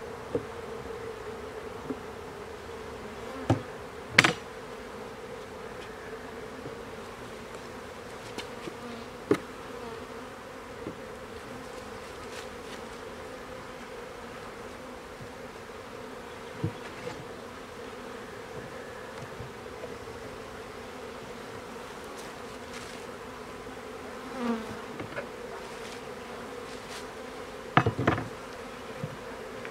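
Honeybees buzzing in a steady hum around an open hive as a nuc is installed, with a few sharp knocks of the wooden frames and hive boxes being handled. The loudest knocks come about four seconds in and near the end.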